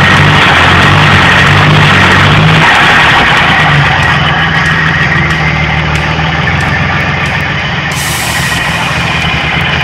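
Rebuilt Ford 2.8 Cologne V6 with carburettor, running steadily after a cold start. The sound is loud and distorted by the phone's microphone. The engine note eases and runs a little quieter from about three seconds in.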